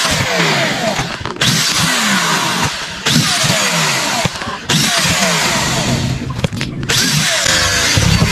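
Corded electric power drill run in short bursts, drilling holes in small metal pieces. Its whine falls in pitch each time the trigger is let go, with brief dips between bursts.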